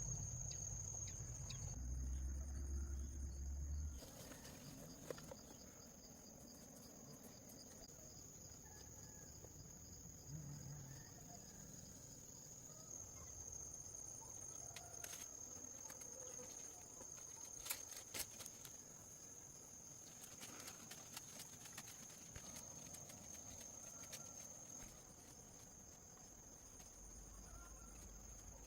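Faint outdoor ambience: a steady high-pitched insect drone, such as crickets, with scattered light clicks and knocks.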